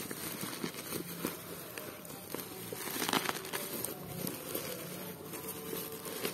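Packaging being handled during an unboxing: rustling and crinkling with scattered small clicks, and a louder rustle about three seconds in.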